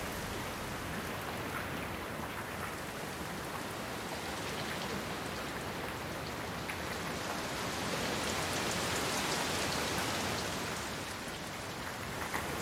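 Heavy rain falling steadily in a forest: a dense, even hiss with scattered individual drops ticking, swelling a little louder about eight seconds in and easing back a few seconds later.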